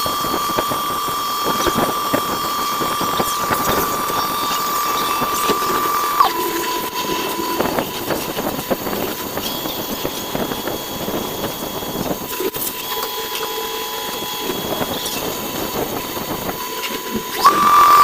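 CNC machine spindle running with a steady high whine over scratchy cutting noise. The whine drops slightly in pitch about six seconds in, fades for a few seconds in the middle, then rises and gets louder again just before the end.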